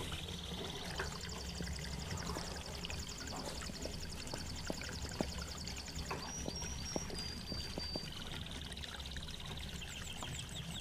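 Canary singing: long rapid high trills, three short high notes and a held whistle about six to eight seconds in, then a lower, slower trill, over a steady low hum.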